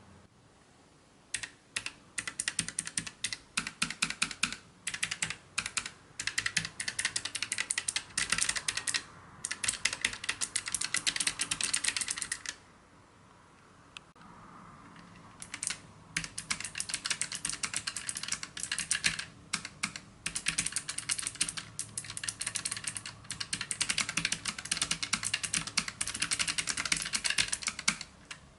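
Typing on a Keychron K3 low-profile mechanical keyboard with Gateron Blue clicky switches: fast, dense runs of sharp clicking keystrokes in bursts, with a pause of a few seconds midway.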